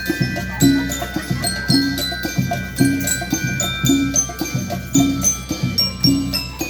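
A school rhythm band playing: bell lyres ringing out the melody over drums, with a heavy drum beat about once a second and lighter strokes in between.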